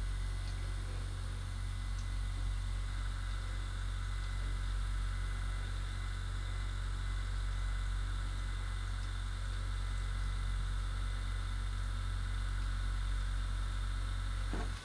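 Handheld percussion massager running with a steady low buzzing hum as it works over a person's back, switching off abruptly at the very end.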